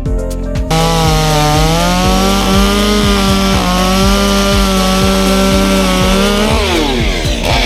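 Large two-stroke chainsaw running at high revs with a steady pitch, coming in abruptly under a second in. Near the end the pitch falls away as the throttle is released.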